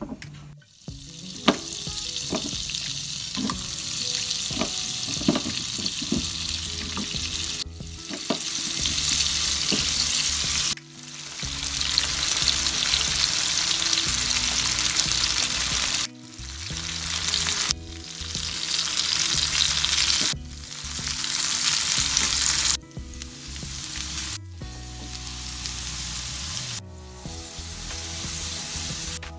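Potato wedges sizzling as they fry in melted butter in a non-stick pan. The sizzle breaks off and starts again abruptly several times, over faint background music.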